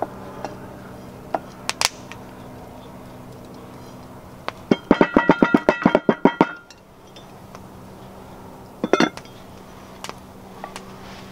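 Soft background music with steady low tones. Starting about five seconds in, a small cast iron Dutch oven rattles and clinks rapidly for about a second and a half as it is handled. Its metal parts give off a ringing clink again at about nine seconds, as the cast iron lid goes on.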